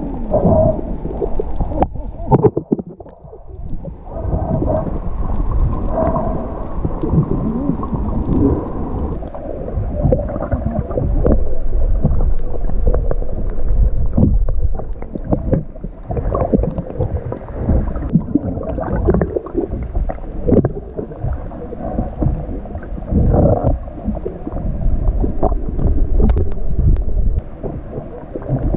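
Muffled underwater rumble and sloshing picked up by a submerged camera, water moving against the camera with gurgles and irregular surges.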